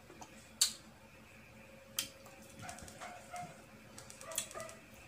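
Sharp crunches of someone biting and chewing crisp unripe green mango, a second or so apart, with a cluster of crisp clicks near the end as fingers pick through the slices on the plate. Faint short high whines sound in the background about halfway through.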